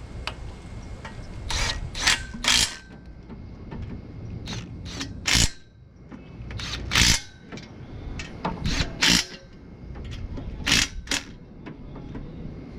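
Ratchet wrench worked in short strokes, about a dozen in irregular groups of two or three, tightening the bolts that hold exhaust headers to the cylinder head.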